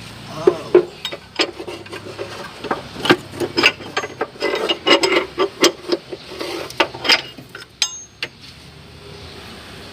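Ratchet wrench clicking in irregular runs, with metal clinks, as the engine's crankshaft pulley is turned by hand to check whether the engine has seized.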